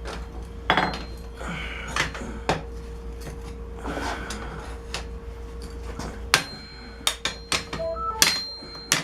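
Hand hammer striking hot steel on an anvil in scattered, irregular blows, some with a short metallic ring, as a forged wrench is bent into a curved karambit blade. A steady low hum sits underneath and fades about eight seconds in.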